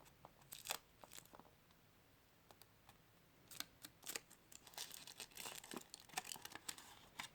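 Foil wrapper of a Kinder Surprise egg being peeled and crinkled, in faint scattered crackles that get busier about halfway through.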